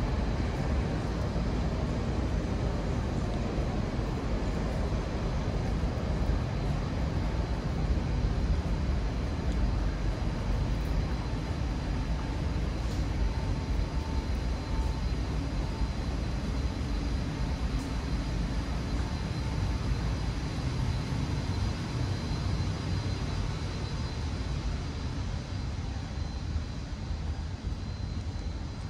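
Steady low rumble of the city below: distant traffic and building machinery, with a faint thin high whine over it. It eases off slightly near the end.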